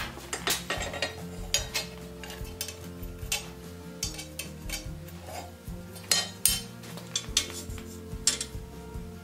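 Irregular metal clinks and knocks of tongs and a hot iron bar against a cast-iron bench vise as the bar is worked and checked, over quiet background music.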